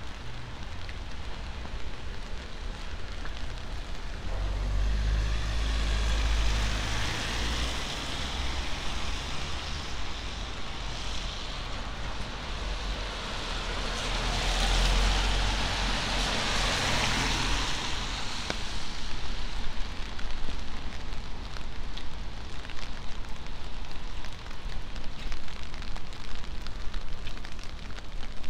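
A car passing on a wet street: its tyre hiss and low rumble swell to a peak about halfway through and then fade away, over a steady background of rain.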